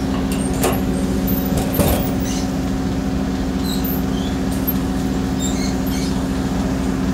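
Large industrial electric motor and its coupled drive running steadily: a constant machine hum with a few steady pitched tones. Two faint clicks come about half a second and two seconds in.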